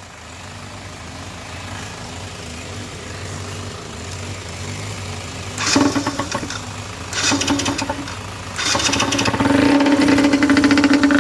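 Yamaha TDR 125's single-cylinder two-stroke engine idling, then revved in three bursts, the last held for a few seconds, running sound and healthy after a full rebuild.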